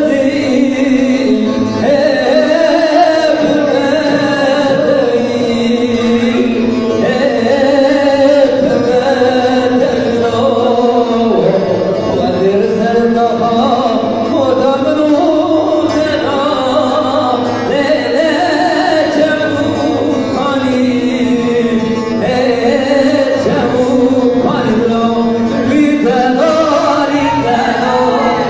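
Man singing a slow, ornamented melody into a microphone, his voice gliding and wavering between held notes, with instrumental accompaniment.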